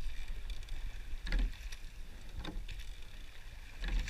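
An eight-oared rowing shell under way: oars knock in their oarlocks and blades splash in the water, with three sharp knocks. A low wind rumble on the microphone runs underneath.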